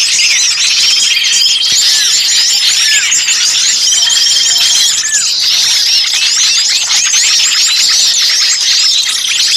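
A loud, dense chorus of many small birds chirping and calling at once, with short repeated trills and falling whistled notes: a noisy small-bird lure recording meant to draw other birds in.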